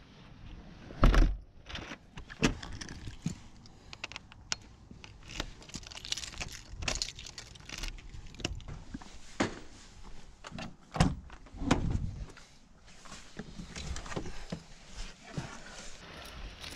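A front door pulled shut with a thud, then clicks as a key turns in its lock and keys jangle. A heavier thud about two-thirds of the way through, likely a van door shutting.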